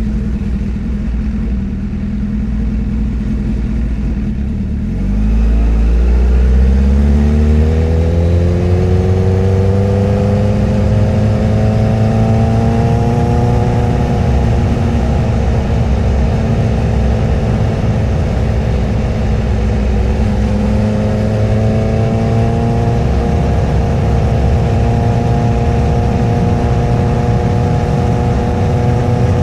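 2008 Honda CBR1000RR's 999cc inline-four engine pulling under way. It runs low and steady at first, then climbs in pitch and gets louder from about five seconds in. It holds level, rises again about twenty seconds in, and then steadies.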